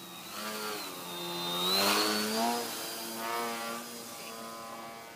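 Motor and propeller of a radio-controlled Edge 540T aerobatic model plane buzzing through a low pass, its pitch shifting with throttle. It is loudest about two seconds in, then fades as the plane climbs away.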